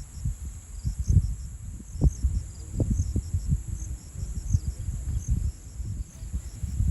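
Insects, likely crickets, chirring in a steady high-pitched drone with faint repeated chirps, over irregular low bumps and rumbling that are the loudest part.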